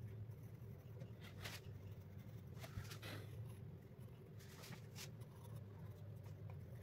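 Graphite pencil shading on drawing paper: several short, faint strokes over a steady low hum.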